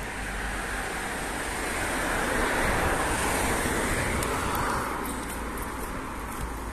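City street traffic: a passing vehicle's noise swells to a peak about three seconds in, then fades away.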